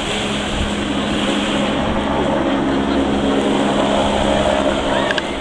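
Jet ski engine running steadily as it passes close by, over wind and wave noise.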